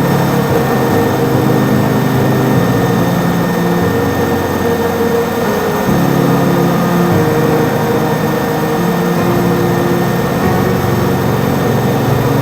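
Super Puma helicopter's turbine engines and gearbox running steadily, a loud continuous noise with thin high whines, under low sustained tones that shift in pitch every second or two.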